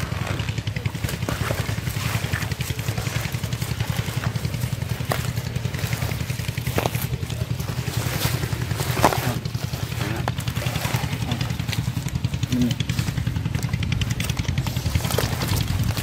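A small engine runs steadily as a low, fast-pulsing drone. Over it come scattered clicks and rustles of wet water hyacinth and catfish being handled, with one sharper knock about nine seconds in.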